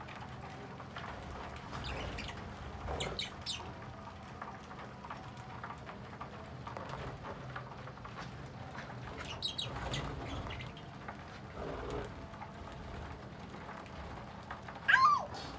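A flock of lovebirds feeding from a seed tray, giving scattered faint chirps over a light, continual ticking of seed being husked. A single louder call that falls in pitch comes near the end.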